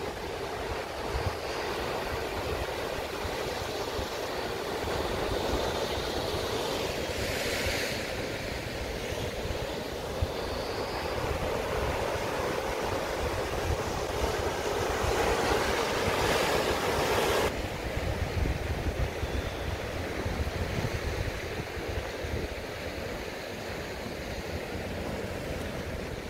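Ocean surf breaking and washing over rock ledges, a continuous rushing wash with wind buffeting the microphone. The wash swells twice, the second swell ending abruptly about two-thirds of the way through.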